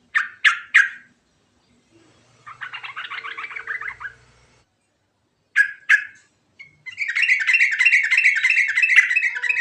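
Sooty-headed bulbul (trucuk) singing. It gives three short sharp notes, then a fast chattering trill, two more sharp notes, and from about seven seconds in a long, rapid rolling warble.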